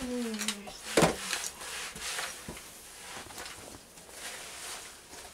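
Hands kneading and scraping through damp sand-and-clay substrate in a plastic tub, with scattered scratchy rustling. A short voice sound opens it, and a sharp knock comes about a second in.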